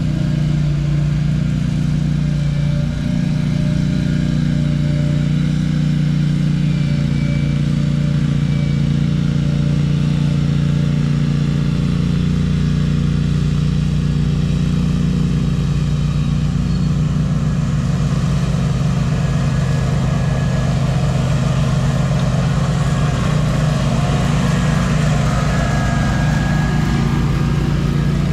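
Small gasoline engine of lawn-care machinery running steadily at a constant speed.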